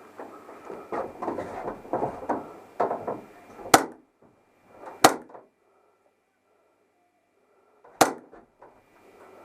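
Rustling and scuffing of gear and movement, then three sharp single airsoft gun shots, the first two about a second apart and the third about three seconds later.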